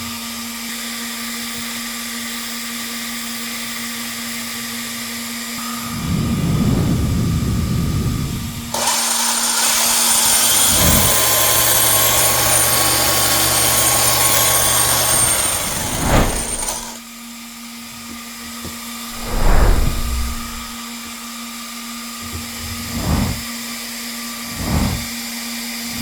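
Brushless electric motors of a dual-motor 1/7-scale RC car running at high speed: a loud high-pitched whine with hiss that starts about nine seconds in and stops about eight seconds later. A steady low background tone runs throughout, and several short thumps come near the end.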